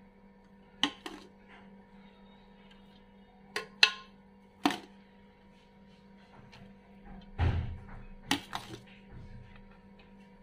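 A metal spoon knocking against an aluminium cooking pot as rice is spooned into it: sharp clicks, several in pairs, with a duller thump about seven seconds in.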